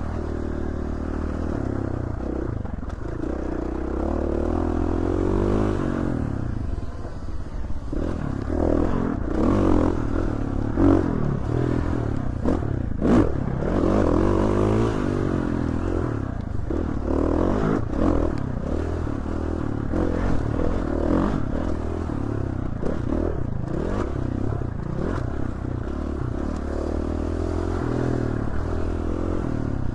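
Dirt bike engine under way, revving up and down again and again as the throttle opens and closes, with scattered knocks and clatter.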